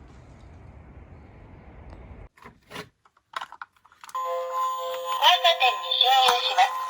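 Toy minicar's built-in sound unit: a few clicks, then about four seconds in a tinny electronic sound starts, several steady chime-like tones held together with a recorded voice over them.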